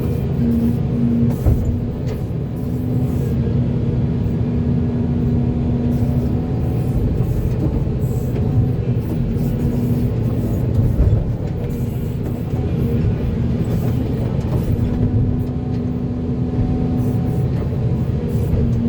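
Volvo EC480D crawler excavator working: a steady heavy diesel drone with a humming tone that cuts in and out every few seconds, and dull knocks about one and a half and eleven seconds in.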